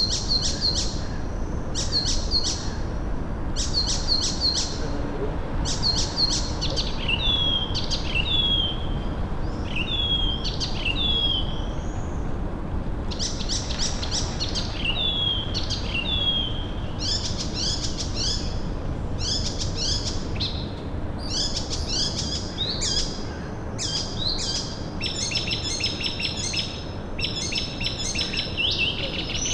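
Small songbirds chirping: short runs of quick, high, downward-sliding chirps repeated every second or so, mixed with some lower slurred whistles. Near the end the chirps run together into a denser, continuous stretch. A steady low background hum lies underneath.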